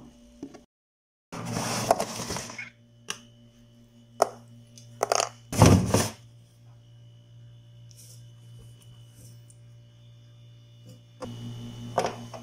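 Things being handled in an open refrigerator: plastic food containers knocking and rustling, a clear crisper drawer sliding out about five to six seconds in, and sauce bottles being moved in the door near the end, over a steady low hum.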